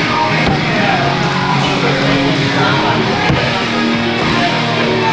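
Loud rock music with guitar, the kind of heavy-metal-leaning track played over a gym workout.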